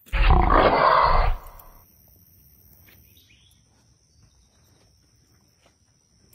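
A loud rush of noise for a little over a second near the start, then a quiet background with a faint steady high-pitched insect trill.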